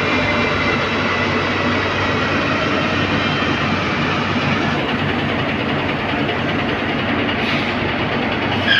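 Ashok Leyland truck running on a roller speed-test bench, its tyre spinning on the steel rollers with a steady loud mechanical noise. A faint high whine eases slightly down in pitch over the first few seconds.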